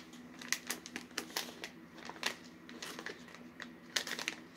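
Clear plastic popcorn pouch crinkling in the hands as it is turned and handled, in short irregular crackles.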